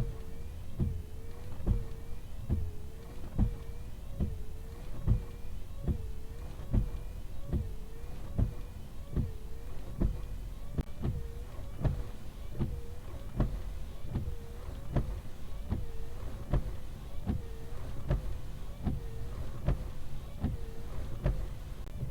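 Flat wiper blades sweeping back and forth across the Hyundai Kona's windshield glass, with a sharp click at every reversal, about once every 0.85 seconds. A rubbing tone rises and falls with each stroke in between.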